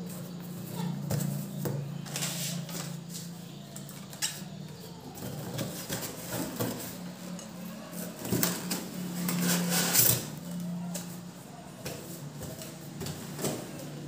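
Handling sounds: cardboard box and plastic packaging rustle, with light knocks, as a ceiling fan's motor body is lifted out of its box and set on a table. A steady low hum runs underneath, and the loudest rustling comes about ten seconds in.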